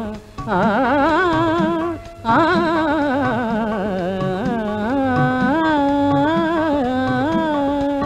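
Carnatic devotional song on the soundtrack: a long ornamented melodic passage with wavering, sliding pitch between sung lines, broken by short pauses near the start and about two seconds in.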